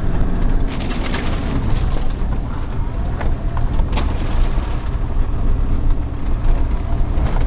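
Four-wheel-drive vehicle's engine running steadily as it ploughs through deep snow, heard from inside the cab, with scattered sharp knocks of snow and branches striking the body and windscreen.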